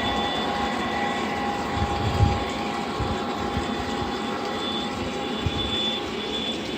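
Lionel O scale model trains running on outdoor three-rail track: a steady rumble of wheels and motor with a thin whine, and a low knock about two seconds in.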